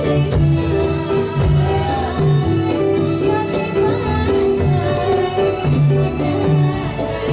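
Dolalak music, the Central Javanese folk-dance accompaniment: a steady percussion beat with jingling hand percussion under sustained melody notes, with a singing voice.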